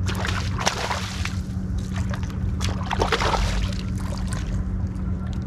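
Water splashing and sloshing in two bursts of about a second each, over a steady low hum from the boat's motor.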